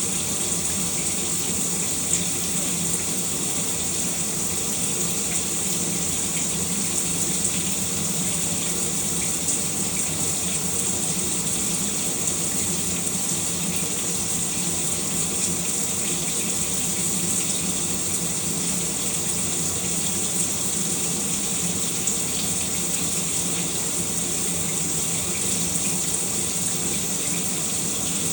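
Shower running steadily, a constant hiss of spray.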